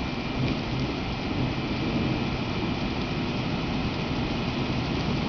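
Low-floor tram rolling slowly past: a steady low rumble of wheels on the rails with a faint high motor whine for a couple of seconds, over the hiss of rain on wet pavement.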